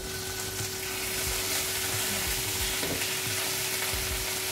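Shutki (dried fish) sizzling as it goes into a frying pan of hot oil: a steady frying hiss that starts suddenly as the fish goes in.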